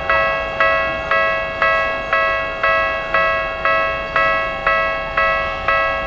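Japanese railway level crossing warning bell ringing a steady, even clang about twice a second, the signal that the barriers are down for an approaching train.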